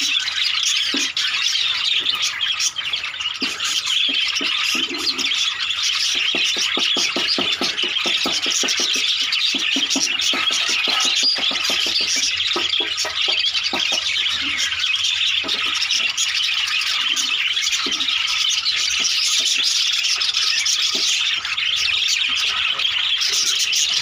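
A flock of budgerigars chattering continuously, a dense, unbroken mix of many high chirps and squawks.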